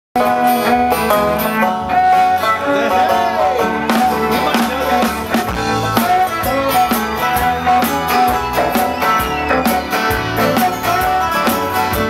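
A live band playing upbeat country-bluegrass music, with strummed acoustic guitar and a bowed cello.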